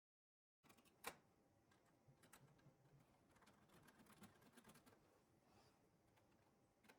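Faint scattered clicks and taps of hands working on a laser printer's case, with a sharper click about a second in and another near the end.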